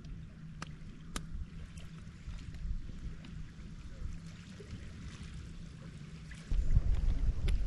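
Low steady outdoor hum with a few faint sharp crackles, then about six and a half seconds in wind starts buffeting the microphone with loud low rumbling.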